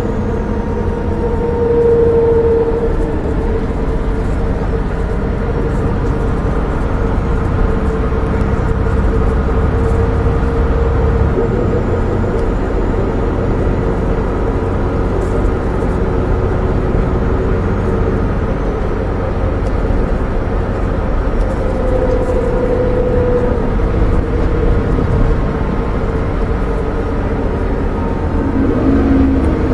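Volvo B7R coach's rear-mounted Volvo D7C 7-litre six-cylinder turbo diesel running under way, heard from inside the passenger cabin with road and tyre rumble. A steady high whine sits over the engine, and the low rumble eases a little about eleven seconds in.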